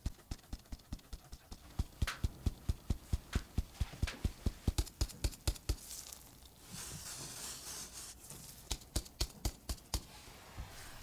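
Hand tapping a stainless-steel mesh sieve of cake flour, rapid even taps about four or five a second, sifting the flour into a glass bowl of batter. Past the middle there is a soft hiss of flour falling through the mesh, then a few more taps near the end.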